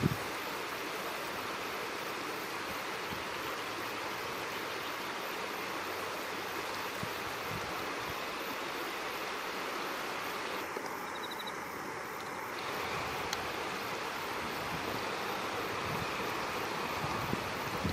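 Steady rushing outdoor background noise with no distinct events; the dozing cat makes no sound.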